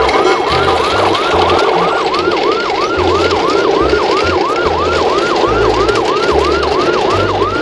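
Electronic siren wailing in a fast yelp, its pitch sweeping up and down about three to four times a second without a break, over a low bass line.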